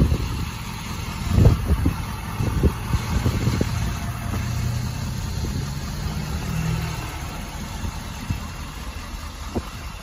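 Ford F-450's 6.7-litre Powerstroke V8 diesel idling steadily, with a thump about a second and a half in.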